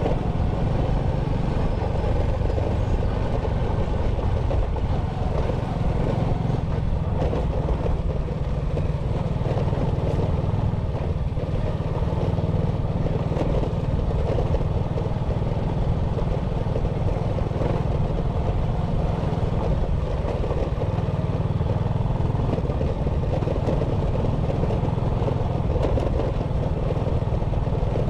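Motorcycle riding along at a steady pace, its engine running evenly under a constant low rumble.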